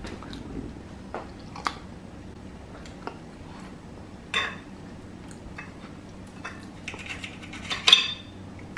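Fork and knife clinking and scraping on a plate while steak is cut: a few scattered clicks, the loudest near the end.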